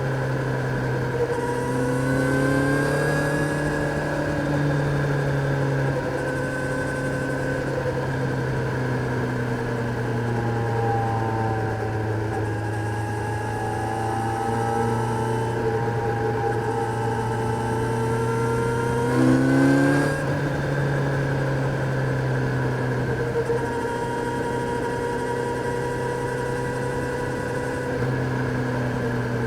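Kawasaki Z900's inline-four engine under way, its pitch rising and falling with throttle and gear changes. About twenty seconds in there is a louder rev. Wind rush runs underneath.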